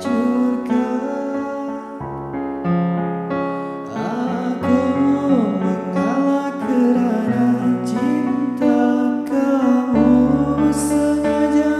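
Yamaha PSR-S arranger keyboard playing an instrumental passage of a slow ballad: held chords over a bass line, with a melody line wavering above them between about four and seven seconds in.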